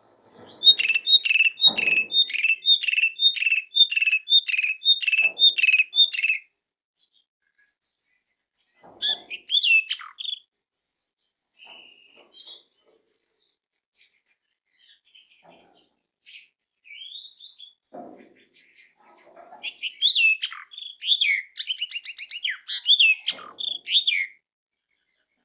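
Asian pied starling (jalak suren) calling and singing. It opens with a quick run of about a dozen repeated notes, a little over two a second. After a pause with a few scattered single calls, a faster, more varied stretch of song comes near the end.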